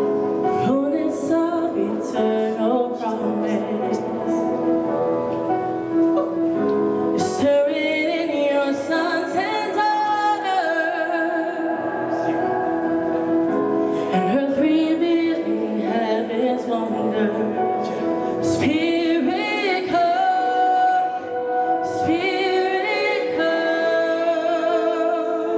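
Live worship band playing a song with a woman singing lead into a microphone, her voice sliding and holding long notes over sustained chords.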